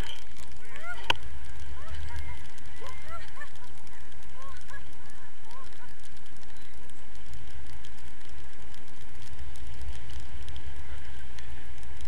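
Airflow buffeting the camera microphone in flight, a steady low rumble, with a string of short rising-and-falling chirps in the first five seconds or so and a few more near the end.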